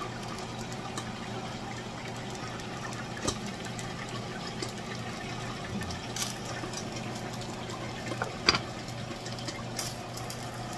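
Pot of galunggong fish in salted water boiling with a steady bubbling hiss over a low steady hum, and a few sharp clinks of the glass pot lid, the loudest about eight and a half seconds in.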